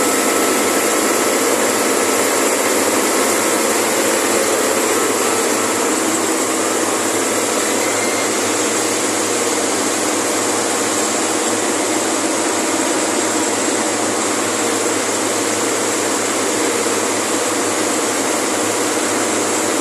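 Refrigeration compressor of a 55-ton tube ice machine running steadily: an even, loud machine noise with a low hum and faint steady tones.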